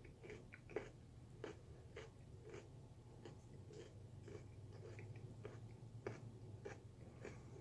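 Faint, irregular crunching and clicking of a person chewing a mouthful of raw sweet potato, over a low steady hum.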